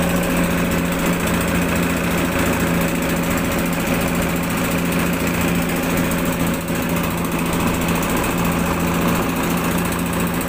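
Fishing boat's engine running steadily, a constant drone that holds the same pitch throughout.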